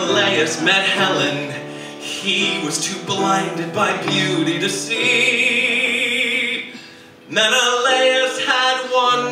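Musical theatre song sung with live band accompaniment. A long held note with vibrato comes about five seconds in, then a brief break near seven seconds before the singing picks up again.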